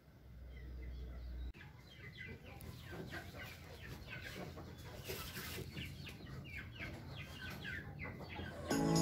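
Birds calling outdoors in many quick, short chirps over faint background ambience. A low rumble cuts off about a second and a half in, and music comes in just before the end.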